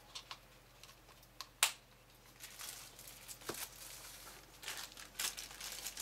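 A few light clicks and taps of handling, then a clear plastic bag crinkling and rustling as a packaged leather knife sheath is picked up and turned in the hands. The crinkling grows louder in the second half.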